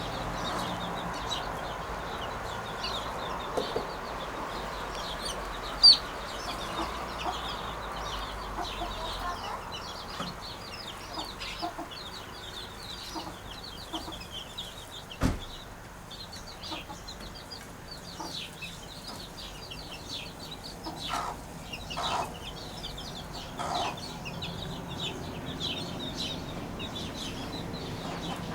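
Birds chirping and chattering densely and continuously in short high notes, with a few lower calls near the end. There is a sharp click about halfway through and a louder brief tap about six seconds in.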